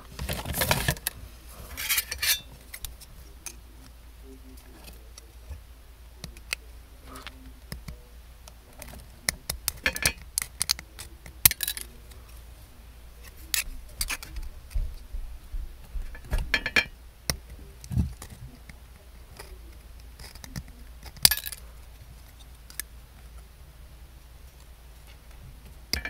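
Scissors snipping thin sheet metal, a series of short sharp metallic clicks and crunches coming in irregular clusters with pauses between cuts.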